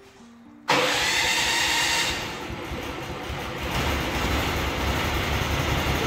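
Norwood LM30 portable band sawmill's gas engine running loud with the band blade turning. The sound brightens sharply for about a second, then settles, and a heavier low throb sets in about halfway through.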